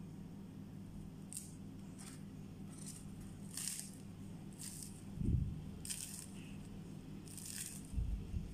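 Crisp crust of fried sfenj (Moroccan yeast doughnuts) crackling as hands tear and squeeze the rings: a series of short, faint crunches about a second apart, with one dull bump about five seconds in.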